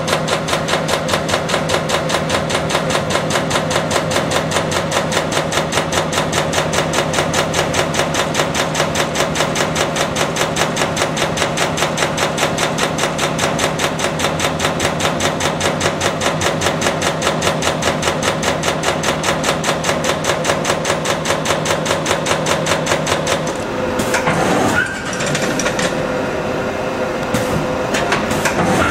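45-ton Wiedemann Magnum 5000 CNC turret punch punching sheet metal: a rapid, even run of sharp hits, several a second. About five seconds before the end the punching stops and gives way to a machine whine that rises and falls in pitch.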